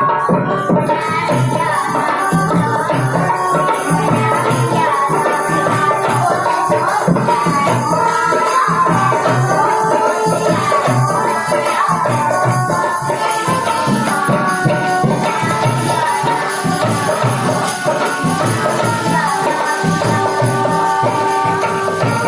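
Indian folk-style devotional music: a melody over a steady beat of hand drums and jingling percussion such as tambourine or rattles.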